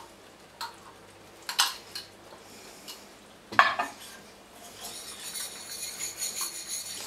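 Light clinks of a glass spice jar and spoon against a stainless steel pan, then a louder knock about halfway through. After that comes a spoon stirring and scraping through simmering tomato sauce in the pan, with a steady hiss.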